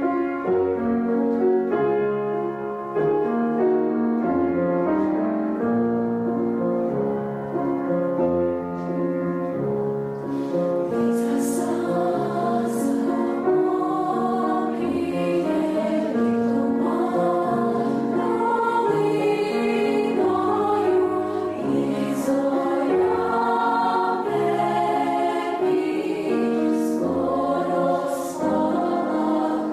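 Girls' choir singing a Ukrainian song in several-part harmony, held chords moving together; the sung words, with their sharp 's' sounds, come through from about ten seconds in.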